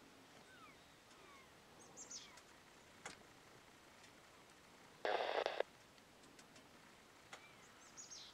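A two-way radio gives one burst of static lasting about half a second, a little past halfway, probably the reply to a call. Faint bird chirps and short whistled glides come and go around it.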